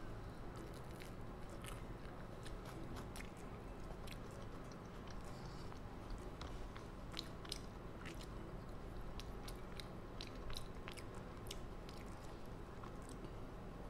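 Close-miked chewing and biting of a crisp fried snack: irregular crunches and wet mouth clicks over a faint steady hum.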